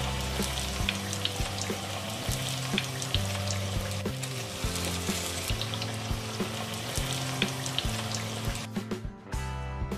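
Marinated paneer cubes deep-frying in hot oil, a steady sizzle with many small crackles, over background music. The sizzle drops away near the end while the music carries on.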